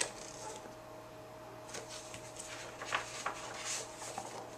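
Faint rustles and handling noise of a paperback picture book as it is held up and turned, a few soft brushes of paper, over a steady faint hum.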